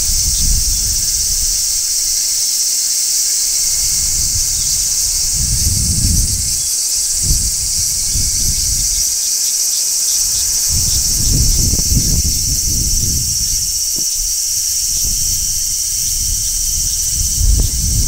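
Large brown cicadas shrilling in one steady, unbroken high-pitched chorus. Gusts of wind rumble on the microphone now and then, near the start, around the middle and near the end.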